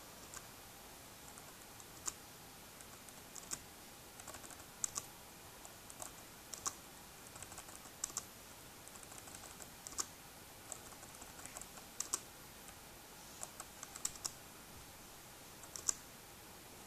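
Keys on a Lenovo ThinkPad E325 laptop keyboard being typed, irregular keystroke clicks, singly and in short runs, over a faint steady hiss.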